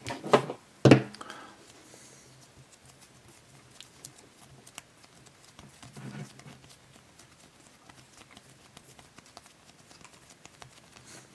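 A few sharp thumps as a hand presses a ball of Play-Doh flat against a tabletop, then quieter handling: faint small clicks and soft rubbing as fingers pinch and shape the dough.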